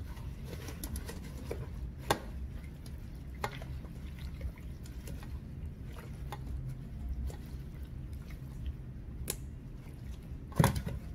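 Gloved hands pressing a paper towel onto wet, drained raw pork pieces in a stainless steel bowl, blotting off the water: soft wet squishing and handling noise with scattered light clicks against the bowl, and a sharper knock near the end.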